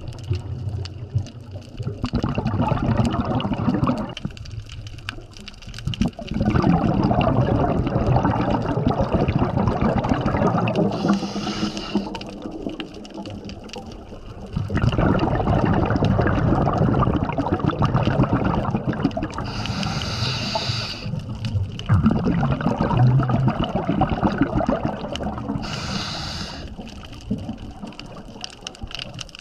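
Scuba diver breathing through a regulator underwater: long bubbling exhalations, broken by three short hissing inhalations.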